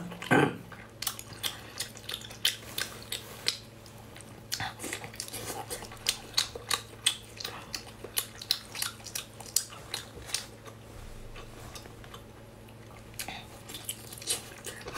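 Close-miked wet eating sounds from cooked octopus: a run of sharp, wet mouth clicks and smacks as it is bitten and chewed, thinning out for a couple of seconds past the middle and picking up again near the end, over a faint steady hum.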